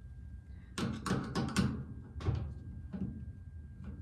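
Hand tools and parts being handled: a quick cluster of clicks and knocks about a second in, then a few single knocks spaced out.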